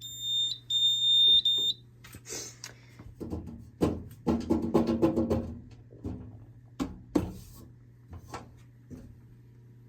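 Fire alarm horns sounding a coded pulse of a steady high-pitched tone, about half a second on, a brief break, then about a second more: simple coding for zone 1. Several clicks and knocks follow, busiest through the middle.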